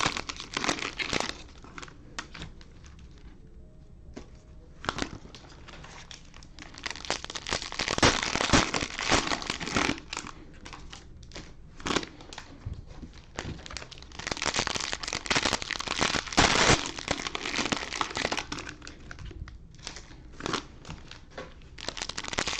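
Cellophane wrappers of trading card packs crinkling and rustling as the packs are handled, in irregular bursts with sharp crackles, quieter for a few seconds early on.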